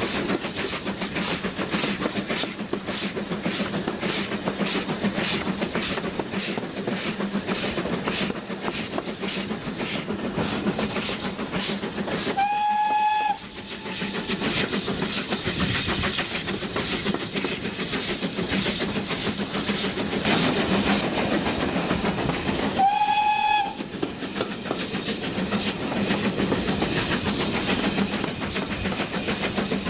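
Steam train running along the line, heard from a carriage, with a steady rhythmic clatter. The locomotive's whistle sounds twice, each a single steady note lasting about a second: about twelve seconds in and again about ten seconds later.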